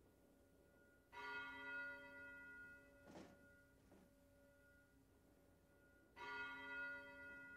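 A large church bell tolling twice, about five seconds apart, each stroke ringing out with many overtones and slowly fading.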